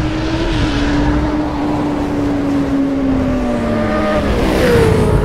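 An engine-like drone with a steady pitch that sinks slowly, then jumps higher about four and a half seconds in.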